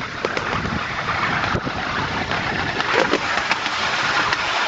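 Recumbent rail vehicle running fast along narrow-gauge track: a steady rattling rush of wheels on rails, with scattered sharp clicks from the rail joints, as it runs into a short tunnel.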